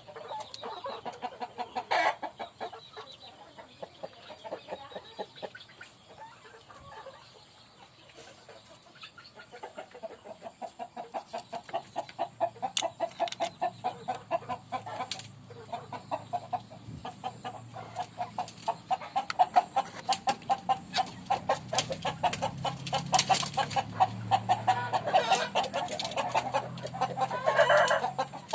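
Ayam kampung village chickens clucking in a long run of rapid clucks that grows busier about a third of the way in, with a louder call near the end.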